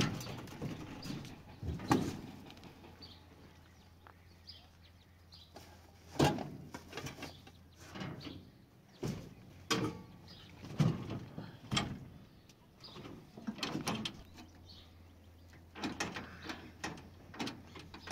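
Irregular knocks and thuds on the steel bed and rails of a pickup truck as a man moves about in it, handling sacks and climbing. There are faint bird chirps in the quieter moments between.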